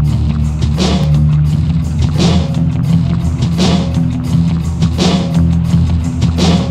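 Background instrumental music with guitar and drums: steady low notes under a sharp drum hit about every second and a half.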